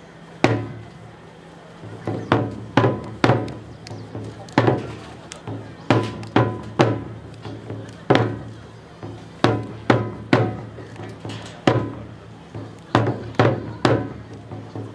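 Japanese taiko drums struck hard in a rhythmic pattern: sparse single strikes at first, then quicker groups of two and three, each ringing briefly, over a steady low hum.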